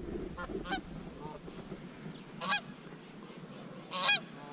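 Canada geese honking: a few short, separate honks, the loudest about two and a half seconds in and just before the end.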